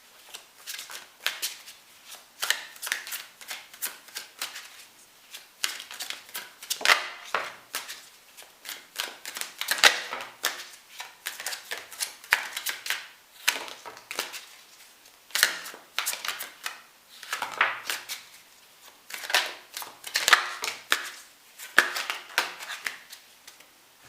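A deck of tarot cards being shuffled by hand: bursts of quick card flicks and slaps, on and off.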